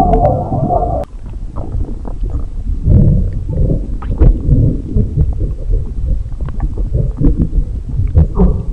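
A stomach rumbling and gurgling. A long, higher-pitched gurgle stops abruptly about a second in, and an uneven run of low bubbling gurgles with small pops and squeaks follows.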